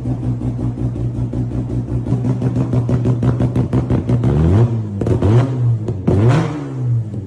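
Mazda RX-7 rotary engine idling with a fast, choppy pulse, then revved in three short throttle blips, each rising and falling in pitch, starting about four and a half, five and six seconds in.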